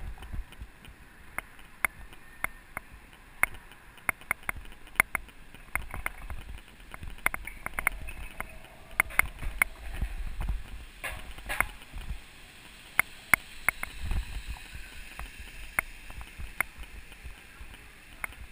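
Mountain bike rattling over brick paving: irregular sharp clicks and clatter as the bike and camera mount jolt over the joints, over a low rumble.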